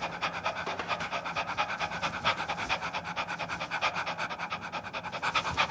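A person panting rapidly and evenly, about eight short breaths a second, stopping suddenly at the end.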